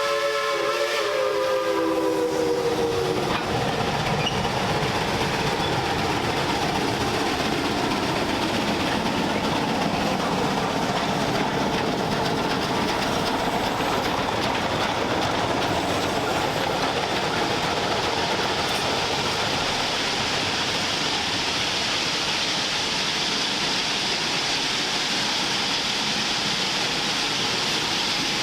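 Steam whistle of Shay geared locomotive Cass Scenic #2, several tones sounding together as one chord, sagging slightly in pitch as it dies out about three seconds in. It is followed by the steady running noise of the locomotive and train.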